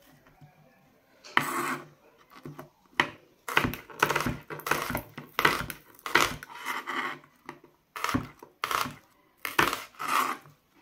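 Kitchen knife slicing a red onion on a wooden chopping board: a string of irregular cuts, starting about a second in.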